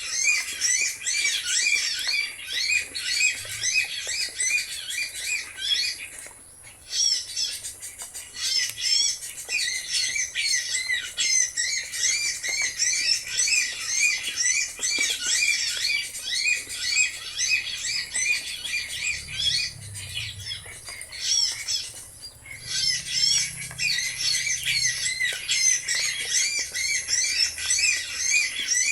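Birds chirping and squawking rapidly and without letup, with two brief pauses.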